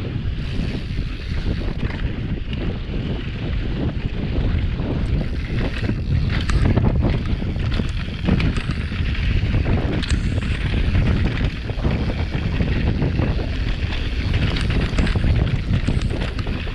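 Wind buffeting an action camera's microphone as a mountain bike rides fast down a dusty dirt trail, with tyre noise and the bike clattering over bumps in a few sharp knocks.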